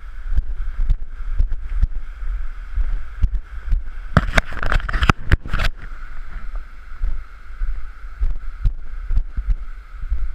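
Wind buffeting the microphone in irregular low thumps over a steady rush of running water, with a louder burst of noise and clicks about four seconds in.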